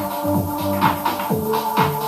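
Electronic dance music with a steady kick drum, about two beats a second over held synth tones, played loud through a Pioneer PBM5 portable party speaker turned up to around 80% volume.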